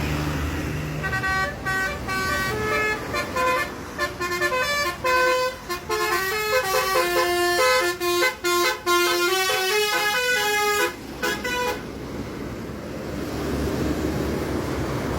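A bus's multi-tone 'telolet basuri' musical horn plays a quick tune of changing notes for about ten seconds, starting about a second in, then stops. Steady vehicle noise sits underneath.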